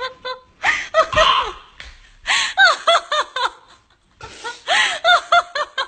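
A person laughing in two bouts, each a quick run of short, high-pitched "ha" pulses, the second bout starting about four seconds in.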